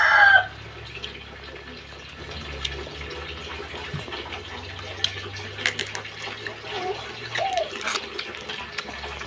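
A rooster crowing fades out in the first half-second. After that come wet chewing and mouth sounds of seafood being eaten, with scattered sharp clicks from the spoon and shell, most of them between about five and eight seconds in.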